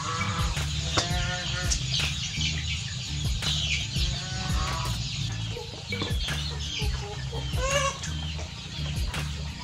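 Chickens clucking and calling, with several short, bending calls in clusters: near the start, about halfway through and near the end.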